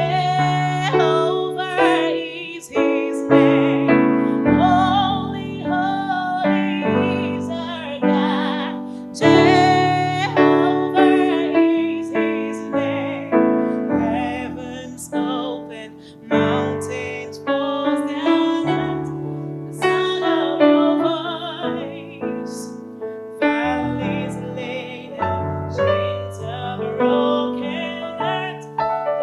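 Piano playing chords, with a singer's voice over it in places.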